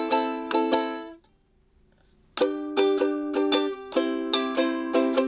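Mahalo ukulele strummed in chords. The strumming breaks off a little after a second in and starts again about a second later.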